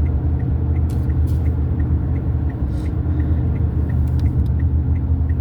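Car cabin: steady low rumble of the engine and road, with the turn-signal indicator ticking evenly, about three ticks a second.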